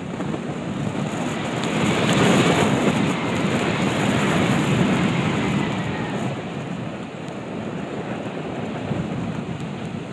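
Typhoon-force wind buffeting the microphone in a rumbling, gusty roar, with surf behind it; a strong gust swells about two seconds in and eases off after about six seconds.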